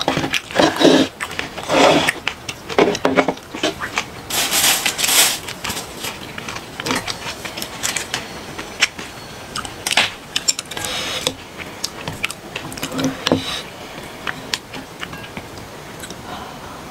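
Close-miked eating sounds: chewing, with chopsticks and a spoon clicking and scraping against the dishes and a glass bowl in a run of short, irregular ticks.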